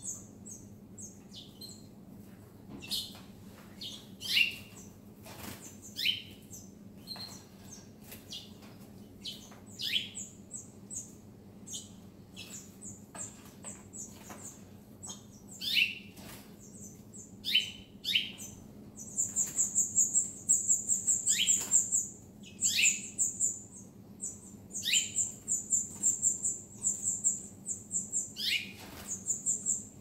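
Small caged songbirds, canaries among them, calling: short chirps that slide downward in pitch come every second or so, and about two-thirds of the way through, long rapid high trills set in and run in bursts. A faint steady hum lies beneath.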